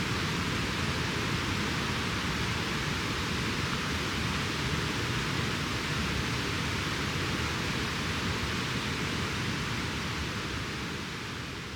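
Steady rush of a mountain stream, fading out near the end.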